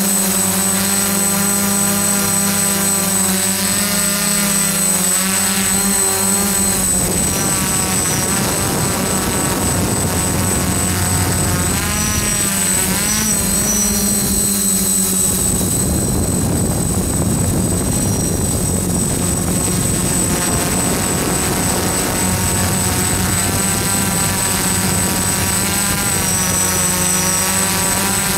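DJI F-550 hexacopter in flight, its six motors and Graupner E-props whirring steadily, heard up close from the camera it carries. Several motor pitches waver up and down and cross one another as the motor speeds keep adjusting, over a steady low hum and a thin high whine.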